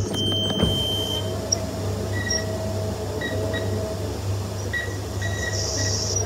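A steady mechanical hum with a low drone and faint high tones that come and go.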